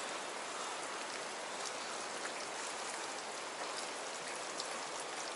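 Steady hiss of a fast-flowing creek, its level even throughout.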